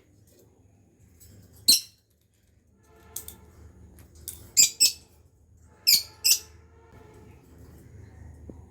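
Pet parrot giving short, shrill squawks: one about two seconds in, then two quick pairs in the middle.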